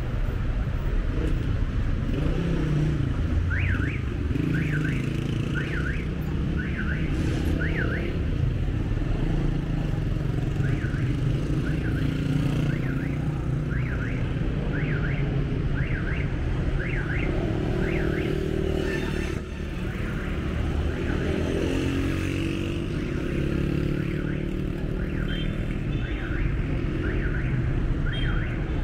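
Street traffic of cars and motorcycles with a car alarm's electronic warble over it: quick rising-and-falling chirps about one and a half times a second, in runs of several seconds. A motorcycle engine swells past in the second half.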